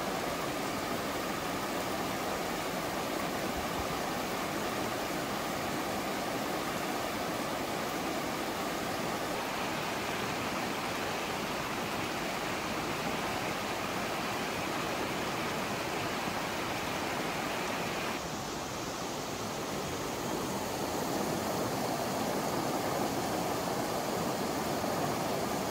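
Mountain stream rushing over rocks in shallow riffles: a steady hiss of running water whose tone shifts about ten seconds in and again about eighteen seconds in.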